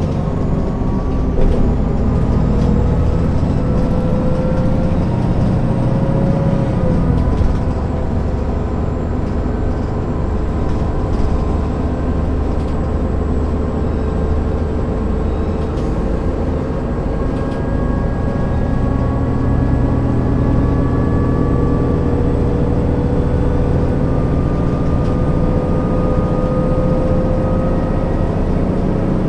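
Diesel engine of a 1998 MAN NG 262 articulated city bus accelerating, heard from inside the passenger cabin. The engine note rises, drops at a gear change about seven seconds in, then climbs slowly again.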